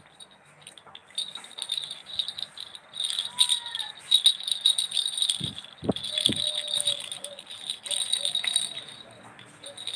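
Pink plastic baby rattle shaken in repeated bursts, a dense high rattling, with a few low knocks about halfway through.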